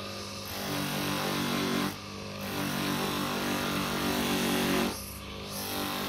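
Small electric motor running with a black abrasive wheel on its shaft, a metal ring pressed against the spinning wheel for grinding and polishing. The grinding noise comes in long strokes and falls away briefly about two and five seconds in, as the ring is lifted and turned.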